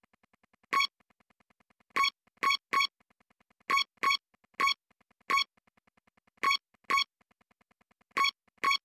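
Synthesizer music: short, bright, identical notes, often in pairs, over a faint, fast ticking pulse.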